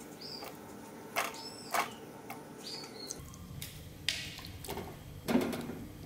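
Chunks of barramundi dropped into a wok of boiling broth and pushed about with a spatula: a few soft plops and knocks against the pan, the loudest about five seconds in.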